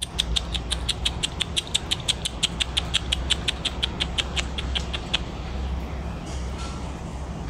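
A person making quick kissing squeaks with the lips to call cats, about six a second, stopping about five seconds in. A steady low hum runs underneath.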